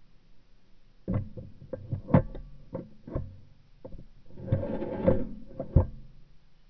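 Handling noise of a shotgun, picked up through its barrel-mounted camera: a string of sharp clicks and knocks starting about a second in, with a short rustling scrape about four and a half seconds in.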